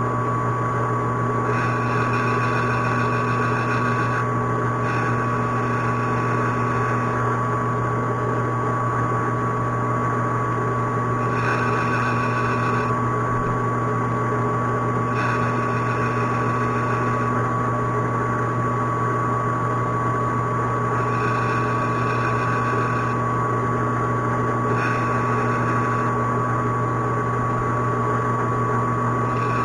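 Metal lathe running steadily with a constant hum and whine. A higher tone comes in for a second or two at a time, about seven times, as the tool cuts small chamfers on the part's edges.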